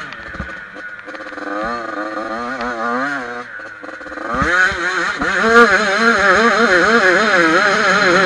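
Yamaha YZ85 two-stroke single-cylinder dirt bike engine, heard from the rider's helmet, revving up and down through corners. About halfway through it opens up and is held at high revs, louder.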